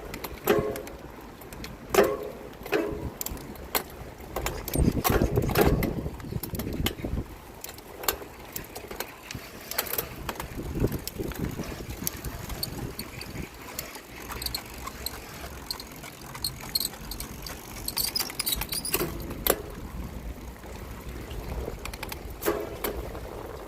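Mountain bike with a Sunringle Düroc SD37 Comp rear wheel ridden over rough ground: irregular clicks, knocks and rattles, with louder rumbling stretches around five and ten seconds in. Among them is a weird noise from the rear hub that the owner is trying to trace.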